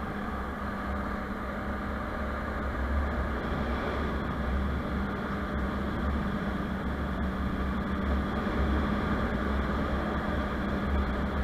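Motorcycle engine running steadily while riding, with a constant low hum under a wash of wind and road noise.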